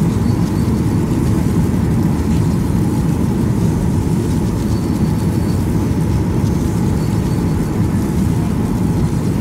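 Airliner cabin noise in flight: a steady low rumble of engines and rushing air, with a faint steady hum above it.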